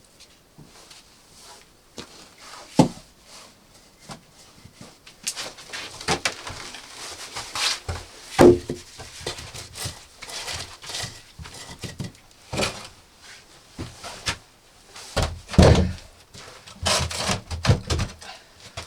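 Irregular knocks and thuds with scraping and rustling in between, as things are handled and set down in a small room; the loudest thuds come about 3, 8.5 and 15.5 seconds in.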